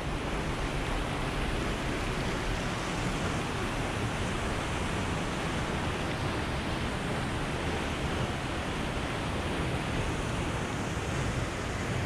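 Waterfall rushing: a steady, even wash of water noise with no let-up.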